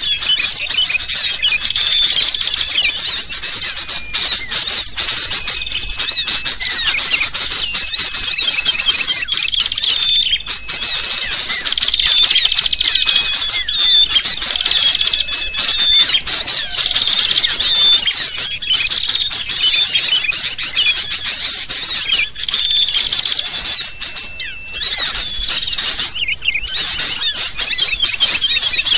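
Dense, unbroken chorus of agitated sooty-headed bulbul calls mixed with the chirps and twitters of small birds, many voices overlapping, with short whistled notes now and then: a bird-lure recording meant to draw wild birds in.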